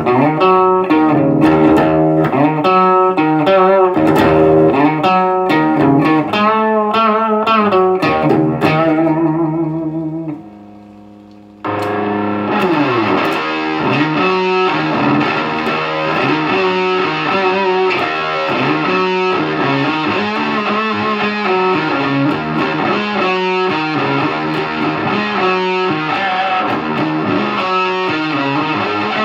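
Electric guitar played through a Visual Sound Angry Fuzz pedal into a Peavey Bandit 112 combo amp, with fuzz-distorted riffs and chords. About ten seconds in the playing dies away briefly, then comes back denser and brighter.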